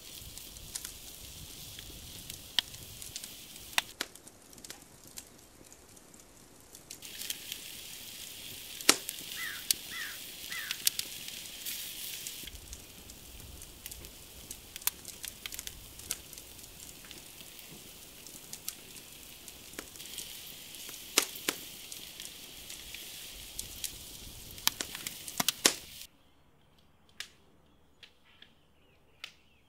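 Lamb pinwheel kebabs and vegetables sizzling on a grill grate over a crackling wood fire: a steady hiss with many sharp pops and snaps. A few seconds before the end it drops to near silence, with only a few faint clicks.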